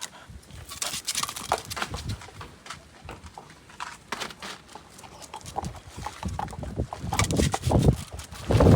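A dog playing: many scattered clicks and knocks, like claws and paws on a hard floor, getting busier toward the end and ending in a louder burst.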